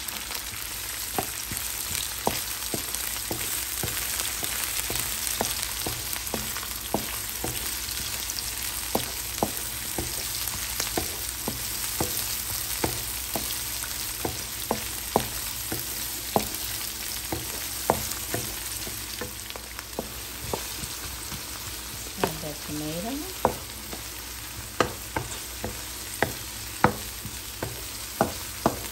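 Chopped garlic and onion sizzling in hot oil in a non-stick pan, with a steady hiss. A wooden spatula stirs them, knocking and scraping against the pan about once or twice a second, with sharper, louder knocks in the second half.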